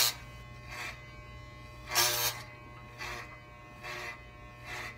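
Corded electric hair clippers with a guard running with a steady buzz, getting louder in short bursts about once a second as they pass through the synthetic wig hair, cutting out bulk.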